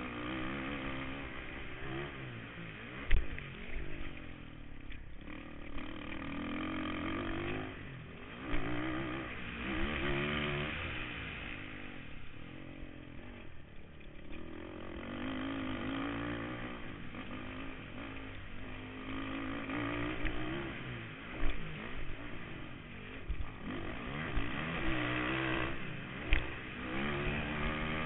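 Kawasaki KFX 450R quad's single-cylinder four-stroke engine, heard from on board, revving up and falling back again and again as it is ridden at race pace. A few sharp knocks come through, the loudest about three seconds in.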